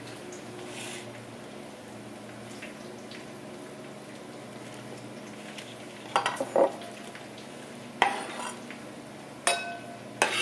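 Chef's knife slicing green onions on a wooden cutting board, a few sharp knocks of the blade on the board in the second half. Underneath, a steady low sizzle of bacon frying in a pan.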